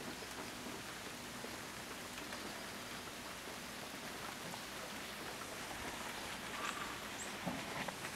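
Freezing rain falling on an ice-glazed deck and trees: a steady hiss, with a few sharp ticks near the end.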